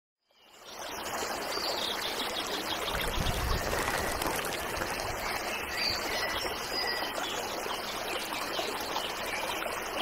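Shallow rocky stream rushing steadily over rapids, fading in during the first second.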